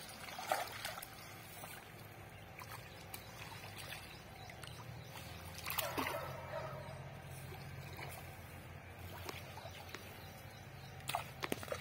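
Water splashing and sloshing as fish thrash in a drag net being hauled through shallow pond water, with a few louder splashes, over a faint steady low hum.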